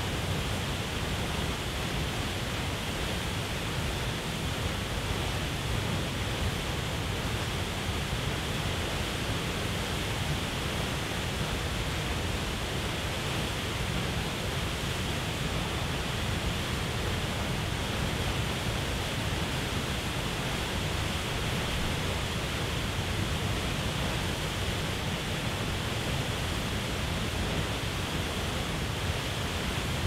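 Big waterfall pouring into a churning plunge pool: a steady, unbroken rush of falling water.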